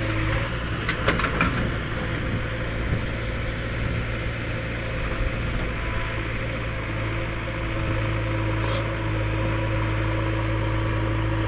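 Diesel engines of JCB 3DX backhoe loaders running steadily near idle, with a few short clicks about a second in. A steady whine joins about two-thirds of the way through and holds.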